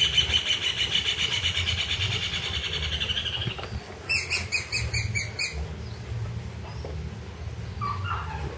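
A bird singing rapid trills: a long, fast pulsing trill, then after a short gap a second, choppier trill of about six notes a second.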